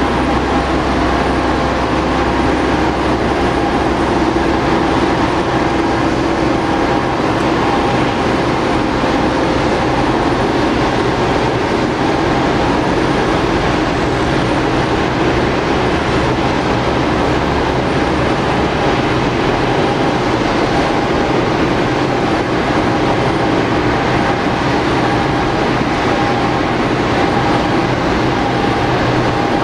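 Boeing 787-8 airliner giving off a loud, steady jet whine and rumble with a few held tones while it is pushed back from the gate by a tug.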